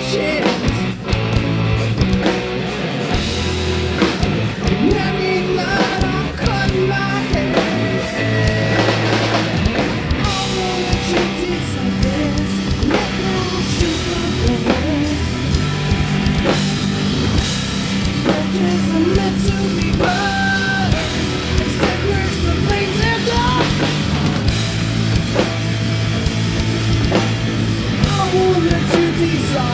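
Live heavy rock band playing a song: distorted guitars, bass and drum kit, with a vocalist singing over them.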